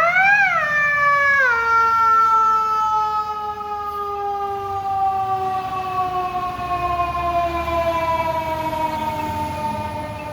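Fire truck's electronic Q siren, an electronic imitation of the mechanical Q siren, sounding loudly. It spins up quickly to a peak, drops about a second and a half in, then winds down slowly in pitch.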